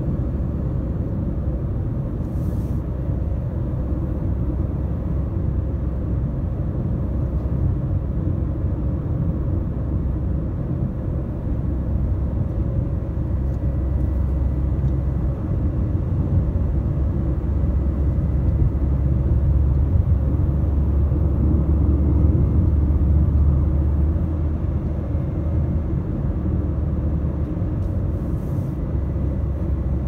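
Steady low rumble of a car driving at highway speed, heard from inside the cabin: tyre and engine noise, swelling slightly about twenty seconds in.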